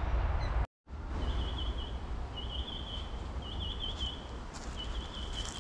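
Wind rumbling on the microphone, broken by a short dropout a little under a second in; then a bird calls in short warbling trills, four of them, about one a second.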